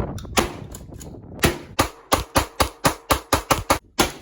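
Gunshots, about a dozen sharp cracks, most coming in a fast run of about four a second through the second half.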